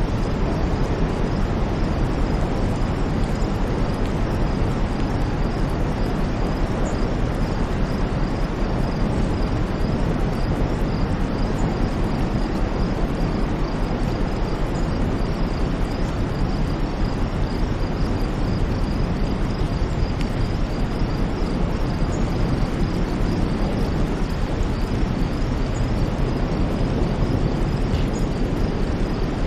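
Steady white noise, deep and rumbling, with no rise or fall. A faint high, fast-pulsing tone runs through it.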